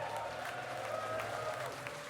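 Crowd applauding and cheering after a hardcore punk song ends, with scattered shouts.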